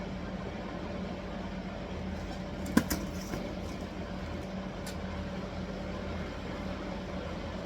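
Steady machine hum with a low, even drone, and one sharp knock a little under three seconds in, followed by a couple of faint ticks.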